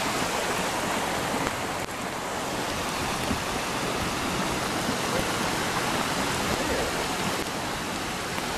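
Muddy floodwater rushing through a washed-out road, a steady rushing noise.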